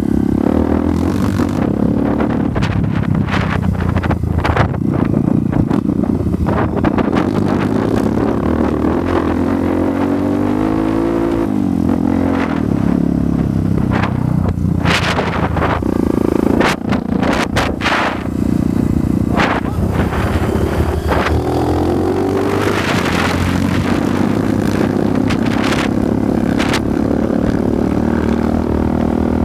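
Dirt bike engine running under way on a rough trail, its pitch rising and falling as the throttle is worked, with two clear climbs in revs, about a third and about three-quarters of the way through. Sharp knocks and rattles come through at intervals over the engine.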